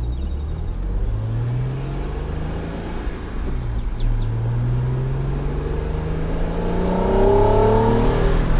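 Honda NSX V6 engine accelerating under load. The revs climb, fall back about two seconds in, then rise steadily again in a long pull that gets louder near the end.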